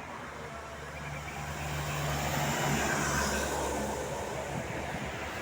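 A road vehicle passing by. Its engine and tyre noise swell to a peak about three seconds in, then fade away.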